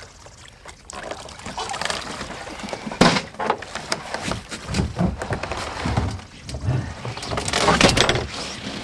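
Water splashing and sloshing as a very large sturgeon, over a hundred pounds, is hauled out of the water over the side of a boat, with irregular knocks and bumps against the hull and deck; a sharp knock about three seconds in.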